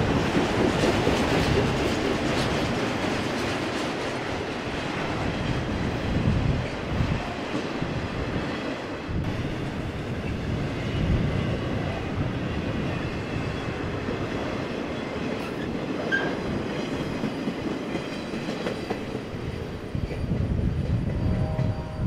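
Freight train's autorack cars rolling past on the rails, a continuous clattering rumble that eases as the end of the train moves away. Gusty wind buffets the microphone.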